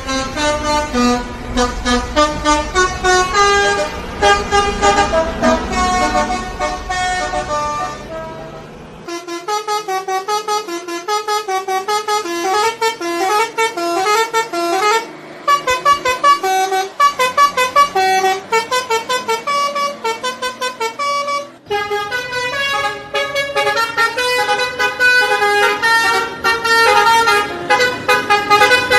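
Multi-tone 'telolet' bus horns playing quick melodic tunes of short, stepped notes. The tune breaks off and a different passage starts about nine seconds in, and again about 22 seconds in; a low rumble lies under the first passage.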